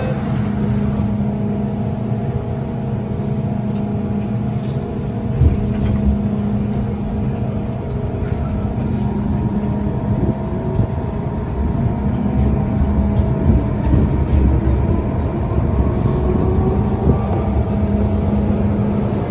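MTR Island Line M-Train pulling out of the platform: a steady rumble and hum from the train, with the traction motor whine rising in pitch through the last several seconds as it gathers speed.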